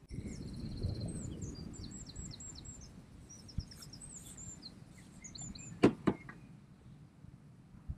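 Small songbird singing rapid high chirps and trills over a low rumble. A little under six seconds in come two sharp knocks, as the fishing pole is set down onto its rest.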